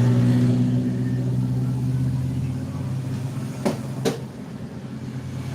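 Bus diesel engine running with a steady low drone that slowly fades, and two sharp knocks a little after halfway.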